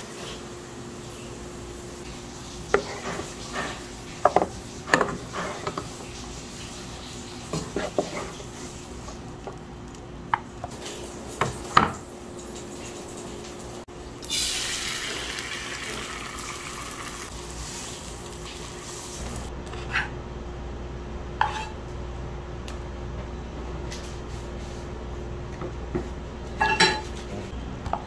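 Wooden spatula stirring fried rice in a metal pot, scraping with sharp knocks against the pot's sides. About halfway through, beaten egg poured into a hot frying pan starts to sizzle loudly, then fades. A few light clinks and taps follow near the end.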